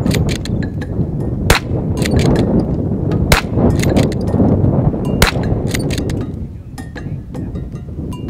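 Browning T-Bolt straight-pull rimfire rifle firing three shots about two seconds apart, each a sharp crack. Light metallic clicks of the bolt being cycled fall between the shots, over a steady low rumble.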